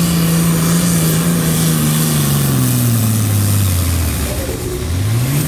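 Diesel engine of a pulling tractor running at high revs under load, its pitch steady and then dropping away over a second or so as the tractor and sled come to a stop. A quick rev follows near the end.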